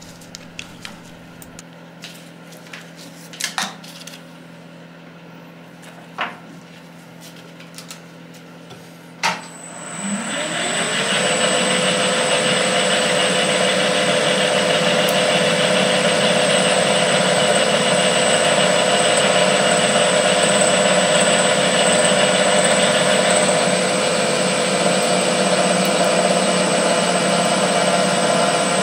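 A few clicks and knocks of tooling being handled at a milling machine. About nine seconds in there is a switch click, and the mill's spindle spins up with a rising whine to a steady run with a constant high whine, as a counterbore is fed into an aluminium block to counterbore a drilled bolt hole.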